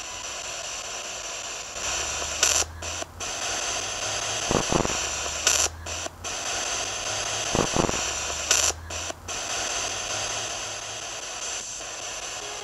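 Ghost-hunting spirit box sweeping the FM band: a steady rush of radio static, broken every few seconds by short dropouts and brief blips as it jumps from station to station.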